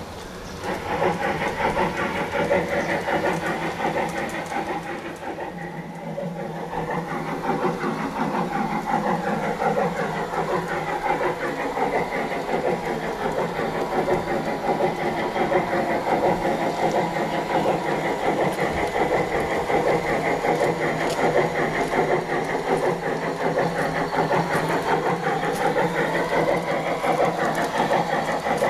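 Märklin gauge 1 model trains running on garden railway track: a steady mechanical whine from the electric drive and running gear, with several lines gliding up and down in pitch as the speed changes.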